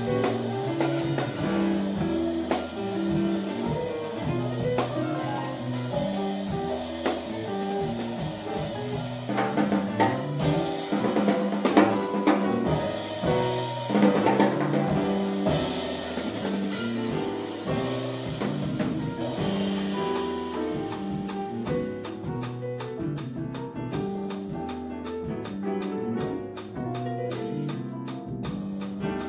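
Live jazz quartet of drum kit, electric bass, piano and electric guitar playing, with the drums prominent. About two-thirds of the way through, the cymbal wash drops away and the playing thins out.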